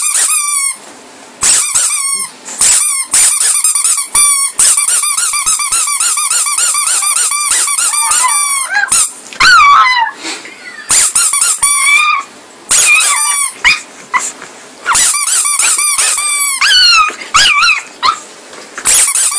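Pug puppy squealing as it plays: rapid strings of short high-pitched cries, several a second, broken by brief pauses, with a few longer, louder squeals from about halfway through.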